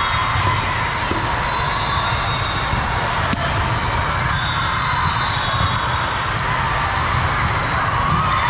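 Echoing din of a big hall full of volleyball play: balls being hit and bouncing, with scattered sharp smacks over a steady murmur of crowd and players.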